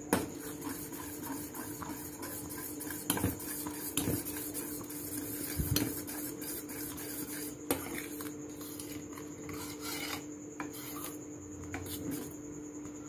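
A steel spoon stirring thick custard in a stainless steel saucepan, scraping and rubbing on the pan's bottom and sides with several sharp knocks against the metal. The stirring keeps the thickening custard from sticking to the bottom. A steady hum runs underneath.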